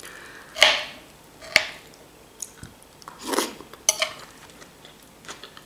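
Metal fork clinking and scraping against a ceramic plate while salad is picked up, a handful of sharp clinks spread over a few seconds.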